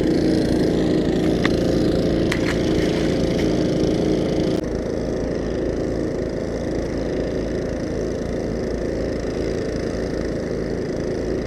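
Generator engine running steadily, part of the setup draining the pond, with a few light clicks early on. The drone drops slightly in level about four and a half seconds in.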